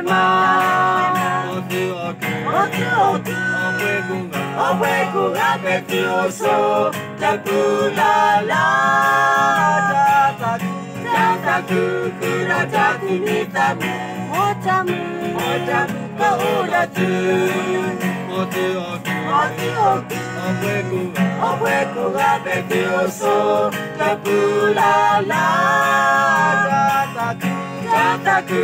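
Small group of men and women singing together, accompanied by a strummed acoustic guitar.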